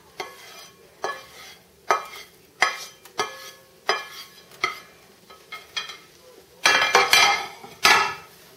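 A utensil scraping and stirring fried rice in a frying pan in repeated strokes, about one a second, with a louder flurry of scraping near the end.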